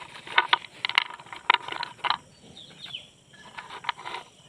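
Slate pencils and their packet being handled as the packet is opened: an irregular run of sharp clicks, taps and rustles.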